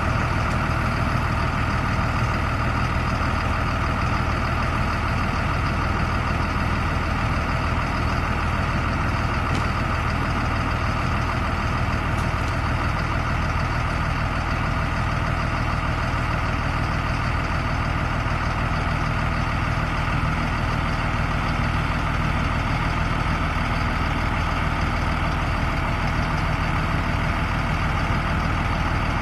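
Caterpillar 3116 6.6-litre six-cylinder diesel engine of a bucket truck idling steadily.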